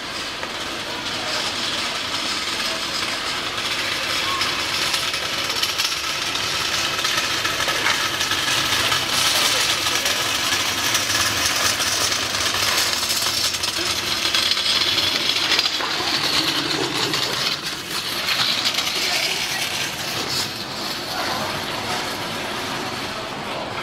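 A large crowd chattering, a dense mass of many overlapping voices.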